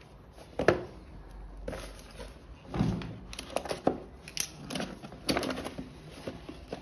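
A camera's retail box being opened and handled by hand: irregular clicks, knocks and rustling of the packaging, with the sharpest knock about a second in.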